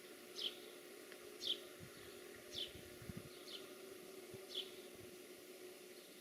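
A bird repeating a short, high, falling call about once a second, five times, faint.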